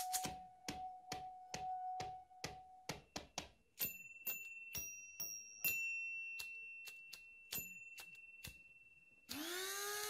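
Homemade percussion music on household objects: a water-filled wine glass sings a steady tone from a finger circling its rim, under regular sharp taps. From about four seconds in, small brass goblets are struck with a stick, each tap ringing at a higher pitch. Near the end a loud hissing sound sweeps up and then down in pitch for about a second and a half.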